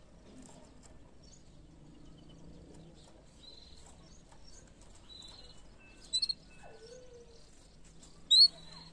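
Canary giving two short, high chirps, one about six seconds in and one near the end, over a quiet background with faint scattered bird notes.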